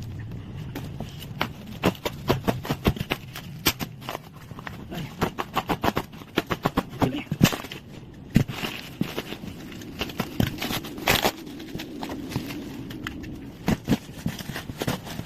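Irregular clicks, taps and knocks, several a second in places, over a low steady hum.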